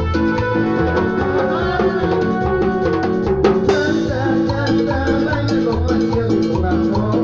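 Band playing instrumental chichita, the Ecuadorian cumbia-style dance music: a steady bass and drum beat under a melody line, with one sharp hit about three and a half seconds in.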